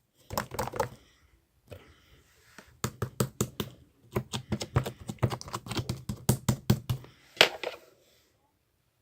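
Slime being squished and poked by hand, making quick runs of sticky clicks and pops, with one louder pop near the end before it stops.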